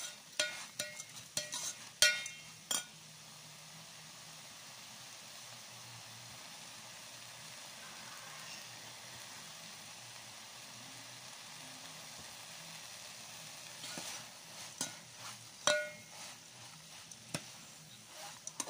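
Metal spoon scraping and clinking against a metal sufuria as omena and tomatoes are stirred, then a steady sizzle of the fish frying in oil, with more scraping and clinks near the end.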